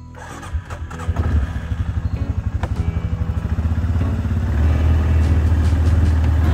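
A small vehicle's engine running with a low, fast pulsing beat as it gets under way. It starts about half a second in and grows louder over the next few seconds, then runs steadily.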